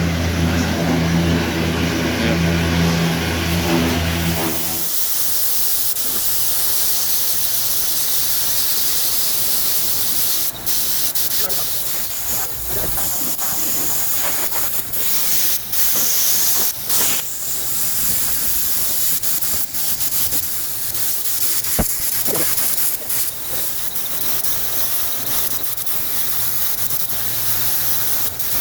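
A steady machine hum with a low drone for the first few seconds, then a steady high hiss of compressed air from a shop air tool, broken by several brief gaps.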